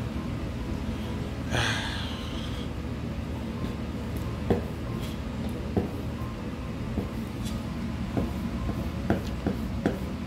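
Kitchen knife cutting and scoring a squid fin on a plastic cutting board: a brief scrape near the start, then scattered sharp taps of the blade on the board from about four seconds in, over a steady low hum.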